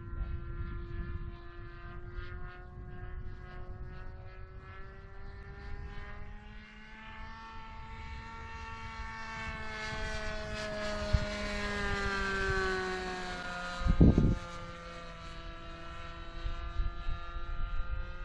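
Seagull Boomerang trainer RC plane's propeller drone as it flies past: it grows louder and rises slightly in pitch, then drops in pitch about twelve seconds in as it passes. A brief low thump follows shortly after.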